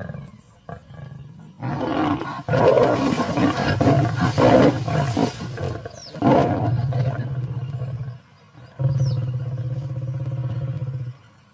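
Lionesses snarling and growling at each other, the aggressive snarls of a mother lioness warding off another pride female. Loud rough snarls begin about two seconds in, and a long low growl follows near the end.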